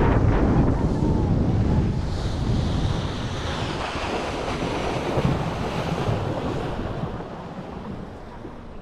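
A small motorboat under way through choppy sea: wind buffeting the microphone and the rush of water from the hull and its wake. The noise gradually eases toward the end.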